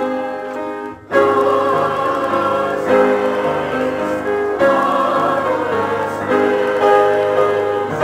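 Mixed church choir singing held chords with piano accompaniment, with a short break about a second in before the next phrase begins.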